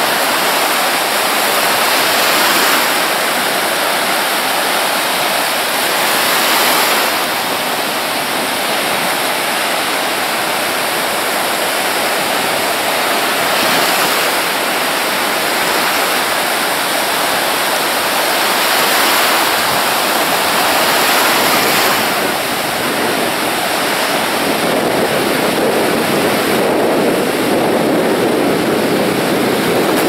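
Sea surf breaking on the shore: a steady rushing wash of waves that swells every few seconds as each wave breaks.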